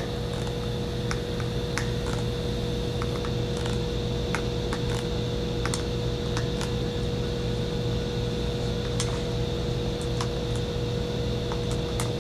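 Light, irregular clicks and ticks of a 14 mm open-ended wrench working the plastic powder tube loose on a powder coating spray gun, over a steady fan hum with a constant tone.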